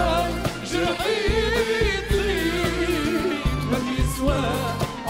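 Live pop-ballad performance: a male singer holds long, wavering, ornamented notes with vibrato over band accompaniment with a regular drum beat.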